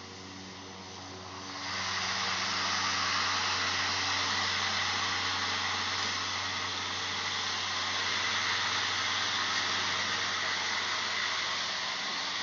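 EGO Power+ LM2102SP-A 56-volt cordless lawn mower running: a low hum, then about two seconds in a loud, even whoosh of motor and blade comes up sharply and holds steady.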